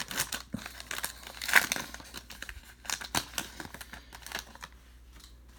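Crinkling and rustling of a trading-card pack wrapper and cards being handled, a busy run of quick crackles that thins out and grows quieter near the end.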